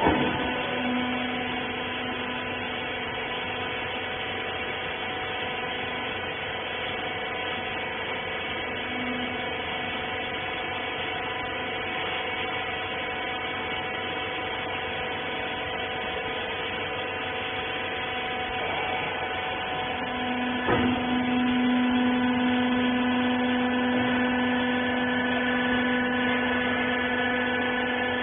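Rag baler's electric motor and hydraulic pump running with a steady hum. About three-quarters of the way through there is a single knock and the hum grows louder.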